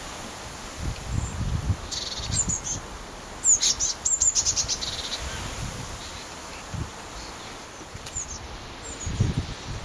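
Blue tits calling: two runs of quick, high, down-slurred notes, the second and louder one starting about three and a half seconds in. Gusts of wind rumble on the microphone near the start and again near the end.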